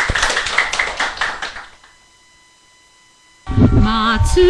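Hand clapping dying away, then after a short lull with a faint steady tone, music starts about three and a half seconds in, led by a wavering, vibrato melody.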